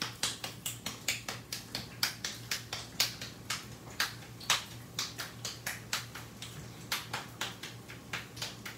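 Food frying in hot oil in a pan, with irregular sharp crackles and pops several times a second.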